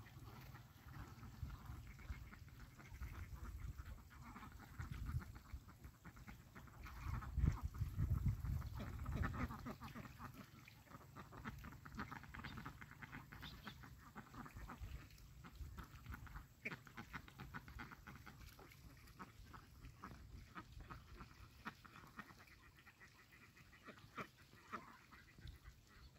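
A flock of domestic ducks calling and feeding in shallow muddy water, many short quacks and dabbling sounds overlapping. A low rumble swells briefly about a third of the way in.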